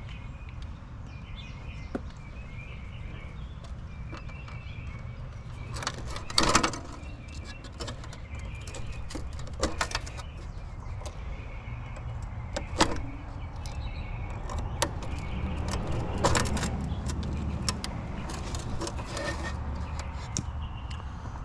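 Knocks and clatters of hand work on an outdoor AC condenser unit whose fan motor is dead: about five sharp hits a few seconds apart, over a steady low hum.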